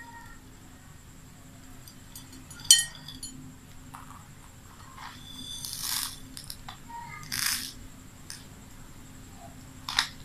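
Beads and a plate being handled on a tablecloth: a sharp click with a brief ring about three seconds in, two longer rustling scrapes around the middle as the plate is moved across the tablecloth, and another click near the end.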